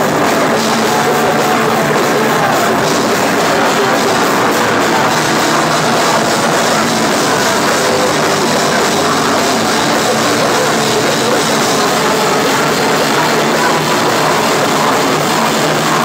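Hardcore punk band playing live at full volume, with distorted electric guitar and a hard-hit drum kit with cymbals, in a dense, unbroken wall of sound.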